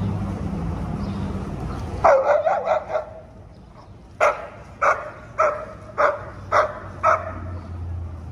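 German Shepherd barking at other dogs, the reaction of a dog-aggressive dog: a quick flurry of about five barks two seconds in, then six single barks a little over half a second apart. A steady low rumble runs under the first two seconds and stops as the barking starts.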